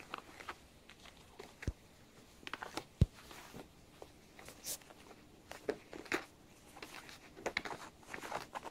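Kittens scrambling and wrestling on a denim-covered lap: scattered soft scratches and rustles of claws and paws on the fabric. Two dull knocks stand out, one nearly two seconds in and a louder one about three seconds in.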